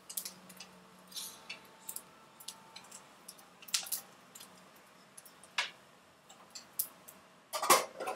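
Kitchen handling sounds: a string of light clicks and taps as a metal pan lid is handled with a cloth over a frying pan, with a louder clatter near the end.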